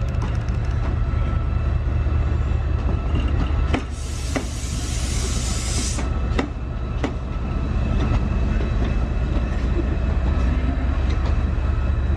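Train running on the rails: a steady low rumble with wheel clicks over the rail joints, and a loud hiss about four seconds in that lasts about two seconds.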